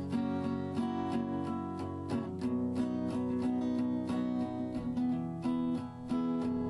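Background music: strummed acoustic guitar playing steady chords with a regular strumming beat.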